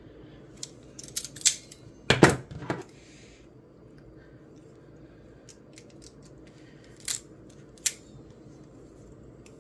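Steel locking pliers being handled, with scattered metallic clicks and clacks from the jaws and handles and a louder knock about two seconds in. Two sharp clicks come near the end.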